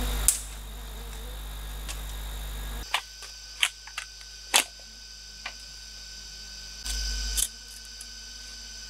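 Bamboo poles being split into strips with a machete: about six separate sharp cracks and knocks of blade and splitting cane, the loudest near the start and about halfway through.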